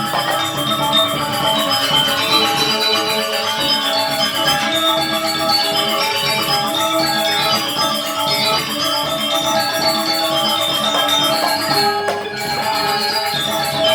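Balinese gamelan gong kebyar playing a dense, shimmering passage of bronze metallophones and gong-chimes over drums. There is a short break about twelve seconds in, and then the music resumes.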